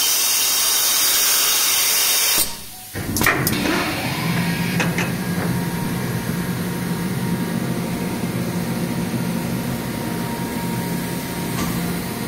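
Compressed air hissing loudly from the PET blow-moulding press's pneumatic system, cutting off suddenly about two and a half seconds in. Then a few sharp clicks and a steady low machine hum.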